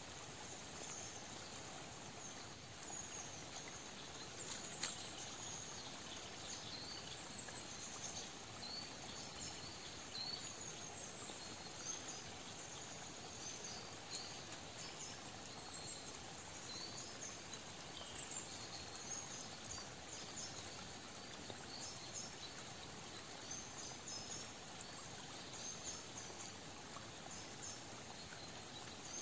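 Quiet autumn forest ambience: a steady soft hiss with scattered short high-pitched chirps, and one brief click about five seconds in.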